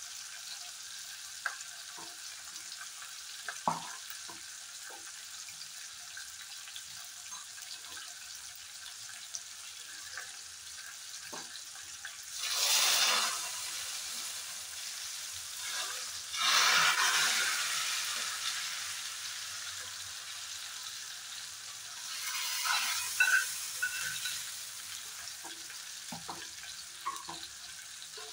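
Spice tempering of dried red chillies and bay leaf sizzling in hot oil in a small pan, with occasional light clicks of utensils. A little under halfway through the sizzling surges loudly in two bursts a few seconds apart as the hot tempering is poured into a pot of khichdi, and there is a shorter burst later.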